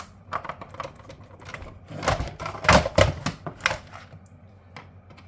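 Metal casing, parts and hand tools of a backup power supply being handled as it is dismantled: irregular clicks and clattering knocks, with a cluster of louder clunks about two to four seconds in.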